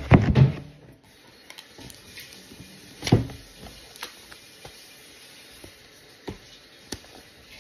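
Close-up handling noise from an iPad Pro and its box being handled: a loud burst of rubbing and knocks at the start, a single thump about three seconds in, and light taps and clicks in between.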